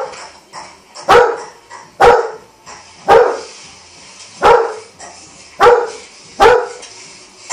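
Basset hound barking, six loud barks about a second apart.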